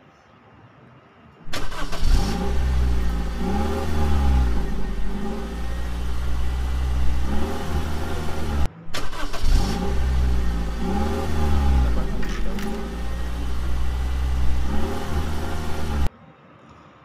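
An edited-in car engine sound: a deep engine running with several quick revs that rise and fall. The seven-second clip starts abruptly, cuts off, plays again identically, then stops abruptly.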